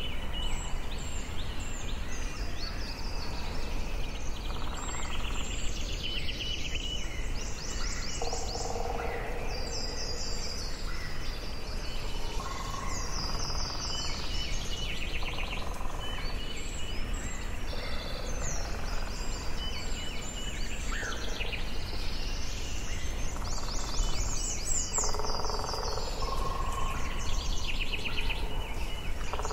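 Forest ambience: several birds singing and calling over one another, with quick high trills and whistles and some lower whistled phrases, over a steady low background hum of the woods.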